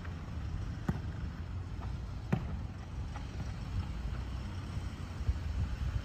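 Two sharp knocks of a soccer ball being kicked or striking the ground, about a second and a half apart, over a steady low rumble.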